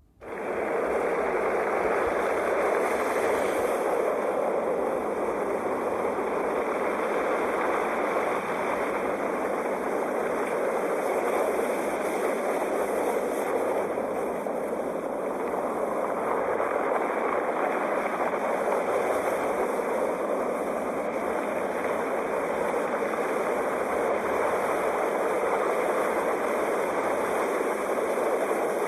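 Sea surf: a steady wash of breaking waves that swells and eases only slightly, starting abruptly out of a moment's quiet.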